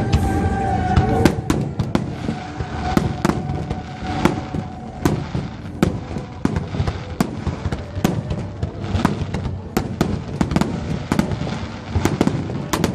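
Fireworks display going off: a rapid, irregular string of sharp bangs and crackles, several a second, over a steady low rumble.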